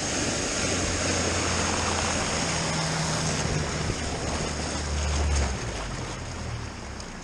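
Boat motor running under way, with water rushing and splashing along the hull. The motor note drops and the rush of water fades from about five and a half seconds in as the boat slows.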